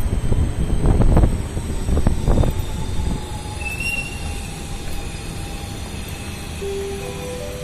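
Electric commuter train running on the elevated track overhead: a heavy rumble that swells twice in the first few seconds, then settles into a steadier noise with a few thin, high, drawn-out tones.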